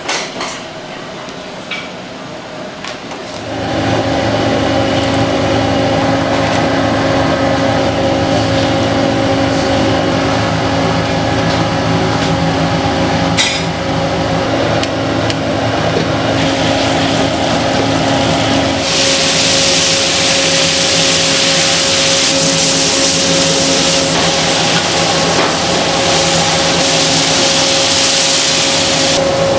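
Steady loud hum of a commercial wok station's burner and fan, starting about three and a half seconds in. From about two-thirds of the way through, loud sizzling and bubbling from the hot sauce in the wok joins it.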